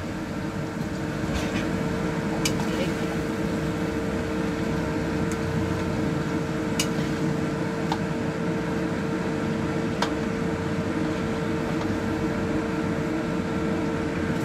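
Steady motor hum holding one constant tone, with a few light clicks of a metal spatula against the wok and plate as the stir-fry is scooped out.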